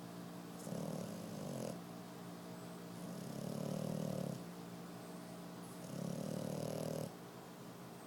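French bulldog puppy snoring in its sleep: three rough snores, each lasting a little over a second, about every two and a half seconds.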